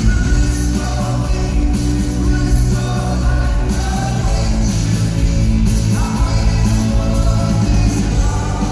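Rock band playing live: a male lead vocal over electric guitar, bass and drums, loud and continuous.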